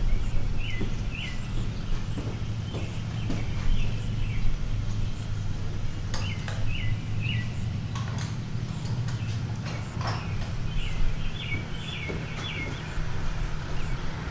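Birds chirping outdoors in short repeated notes, coming in little runs throughout, over a steady low hum, with a few sharp clicks and taps from handling tools and wire.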